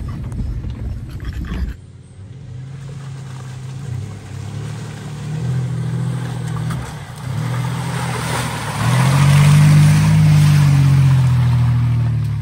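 Modified Mitsubishi Montero's engine working over rough off-road ground, its revs rising and easing off under load. It is loudest and highest about nine to eleven seconds in, with a rushing, scraping noise over it.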